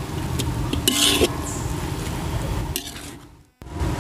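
Metal spatula stirring and scraping moist chopped vegetables and grated coconut around a large metal wok, with one loud scrape about a second in. A low steady rumble runs underneath, and the sound drops out briefly near the end.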